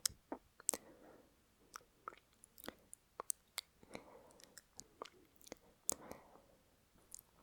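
Wet lip and mouth clicks, many and irregular, recorded close to the microphone, with soft breaths about four and six seconds in.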